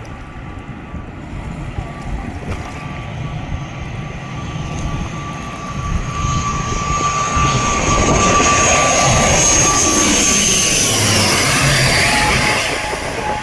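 Airliner on final approach, its engines whining and growing louder as it comes in low and passes overhead. The whine drops in pitch as it goes by.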